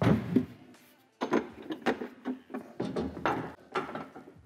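Plastic water jug and its mounting bracket knocking and rattling against the metal cargo rack as the jug is fitted into place: a cluster of knocks at the start, then after a short pause a run of irregular knocks and rattles.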